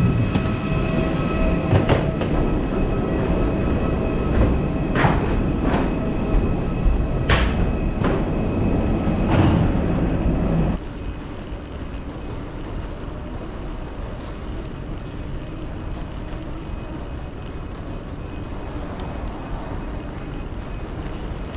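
Loud, steady rumbling noise in an airport jet bridge, with a faint steady whine and scattered knocks and clacks. About eleven seconds in it drops suddenly to the quieter, steady hum of the terminal hall.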